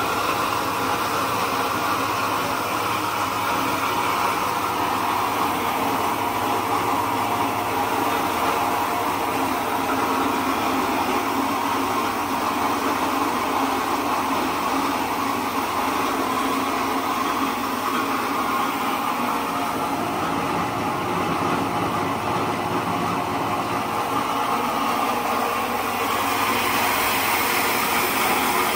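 Small electric rice mill running steadily as it mills rice, a dense, even machine noise of motor and grain passing through it.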